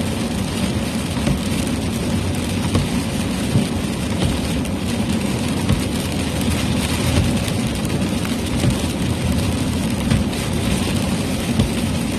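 Heavy rain pelting a moving vehicle, steady and dense, over the low rumble of tyres and engine.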